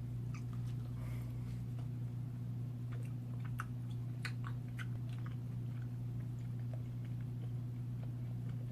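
Chewing of soft, sticky Pulparindo tamarind candy: faint scattered wet mouth clicks over a steady low hum.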